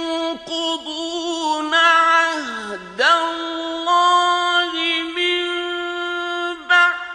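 A male Qur'an reciter's voice in the melodic mujawwad style, holding long ornamented notes. About halfway through, the pitch glides down and swings back up, and a short break comes near the end.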